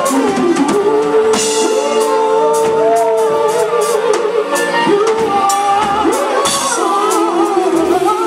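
Live band playing, with drum kit, electric guitar and keyboards under male singing that holds a long note and bends through vocal runs.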